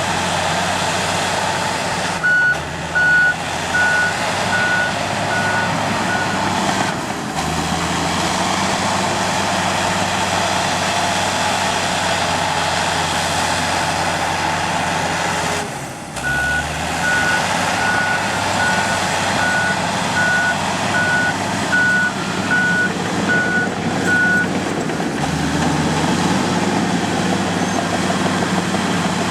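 Komatsu D85 bulldozer's diesel engine running steadily while its reversing alarm beeps in two runs: about six beeps a couple of seconds in, then about a dozen more past the middle, as the dozer backs up.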